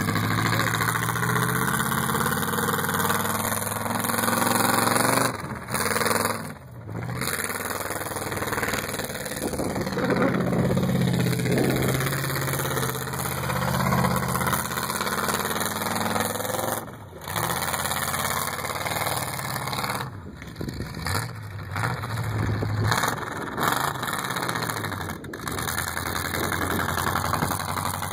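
Demolition derby car engine revving up and easing off again and again as the car is driven hard, with its pitch rising and falling.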